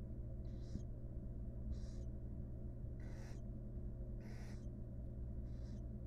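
Barn owls in the nest box giving short raspy hisses, five in a row about a second apart, over a steady low hum.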